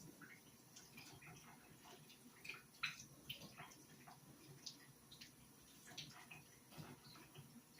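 Faint, irregular splashes and drips of water as a raw steak is rinsed and handled.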